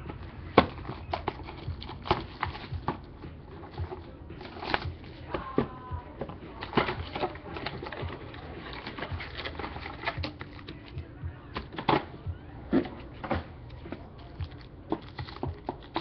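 A cardboard box of baseball cards being handled and opened, then a wrapped pack of cards handled, giving scattered light clicks, taps and rustles at an irregular pace.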